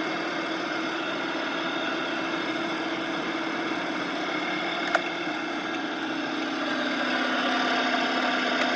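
Drivetrain whine from the driveshaft tunnel of a 2014 Dodge Charger Pursuit, heard inside the bare cabin over the road and engine noise while driving. Its pitch follows road speed rather than gear; the owner suspects the rear axle, the transmission or the driveshaft's carrier bearing. A single sharp click about five seconds in, and the noise grows a little louder in the last couple of seconds.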